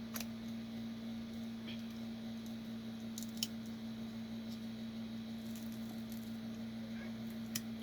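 A few sparse light clicks from a 3D-printed plastic hinge being turned by hand, working it free of its broken internal support material, over a steady electrical hum. The sharpest clicks come about midway and near the end.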